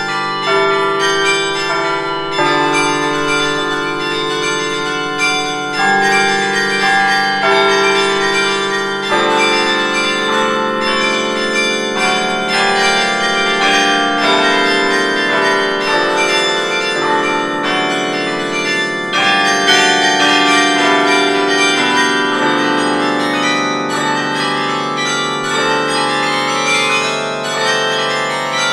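A carillon played from its baton keyboard: a tune of struck bronze bell notes, each one ringing on under the next, with lower bells sustaining beneath the melody.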